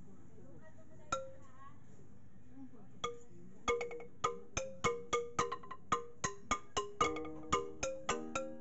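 Wooden xylophone struck with mallets: one note about a second in, then a quick melody of short ringing notes, about three a second, from about three seconds in.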